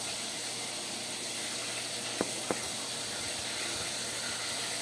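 Two light knocks about two seconds in, a quarter of a second apart, as a glass coffee mug is set down on a table, over a steady hiss.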